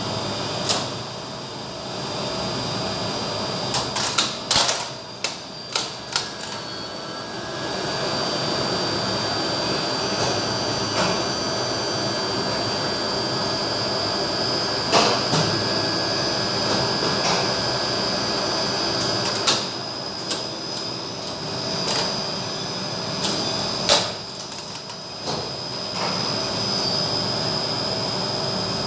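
Banks of relays in a Flohr Otis 98 UCL relay controller clacking in quick flurries, twice, with single clicks in between. Underneath is a steady machine-room hum with a high whine.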